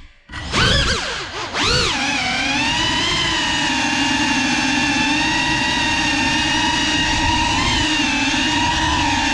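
GEPRC Cinelog 35 cinewhoop's brushless motors and ducted propellers whining. The sound drops out for a moment at the start, then swoops up and down in pitch as the throttle changes, and settles into a steady whine with slight wavers.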